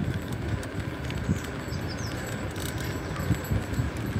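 Wind rumbling on the microphone of a camera riding on a moving bicycle, with light rattles and clicks from the bike.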